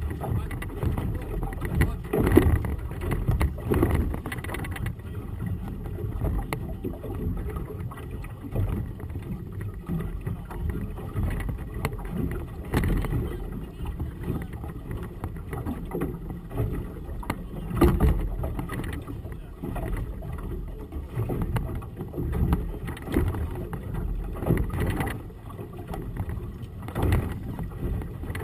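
Gusty wind buffeting the camera microphone in an uneven low rumble that swells and fades, with louder gusts about 2, 13 and 18 seconds in. Choppy water slaps against the hull of a small boat.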